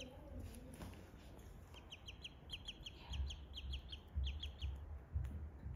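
Ducklings peeping: a quick run of short, high, falling peeps, about four or five a second, from about two seconds in until nearly five seconds, with a few soft low thumps underneath.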